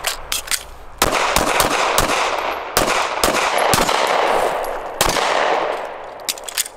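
A SIG M18 9 mm pistol fired in a rapid string of shots at an irregular pace, each report followed by a long echo that fills the gaps between shots.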